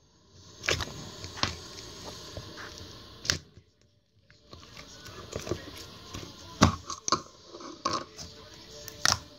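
Fingers poking and squishing black butter slime, first in its plastic jar and then pressed out on a tabletop: soft sticky crackling with a few sharp clicks, broken by a short pause about halfway.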